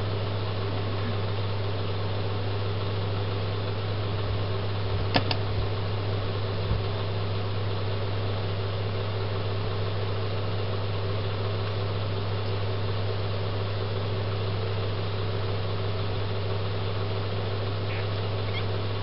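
A steady low mechanical hum, with a sharp click about five seconds in and a softer knock a second and a half later.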